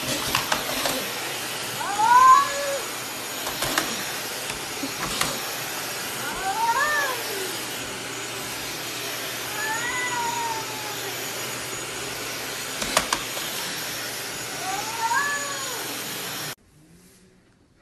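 A cat meowing four times, each call rising then falling in pitch, over the steady rushing noise of a vacuum cleaner running. A few sharp knocks come in between. The vacuum noise cuts off suddenly near the end.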